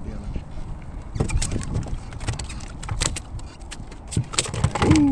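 A hooked fish splashing and thrashing at the surface as it is fought and brought in to the boat, with a run of irregular splashes, knocks and clicks. Near the end there is a brief low hooting tone.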